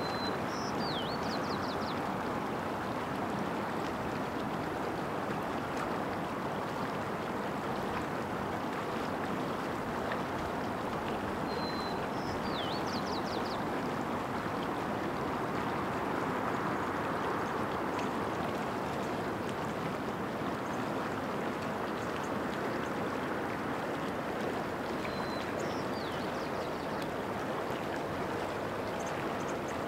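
A creek flowing with a steady rush. A small bird sings a short, high phrase three times, about twelve seconds apart: a brief whistle, a falling note and a quick run of notes.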